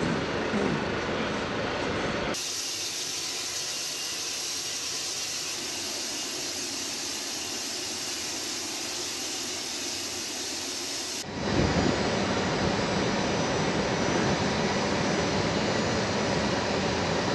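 Aircraft jet engine running steadily, a hiss with a faint high whine. The sound changes abruptly twice at edit cuts: thinner and hissier from about two seconds in, then fuller and lower from about eleven seconds in.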